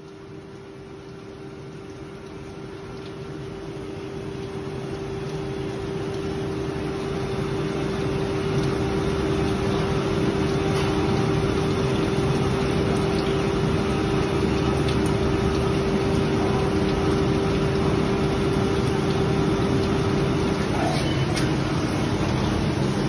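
A PET preform injection molding machine running with its 48-cavity mold closed: a steady machine hum with one steady whining tone. Both grow louder over the first several seconds, then hold level. The whine cuts off about 21 seconds in, as the mold begins to open near the end.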